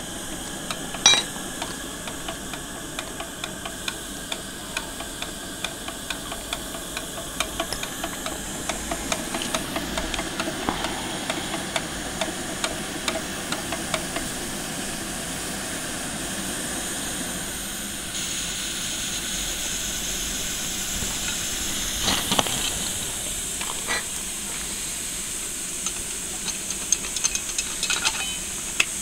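A 5 inch gauge coal-fired live steam model locomotive hissing steadily as it is steamed up, with scattered light metallic clicks and a few louder clanks. The hiss grows stronger about two-thirds of the way through.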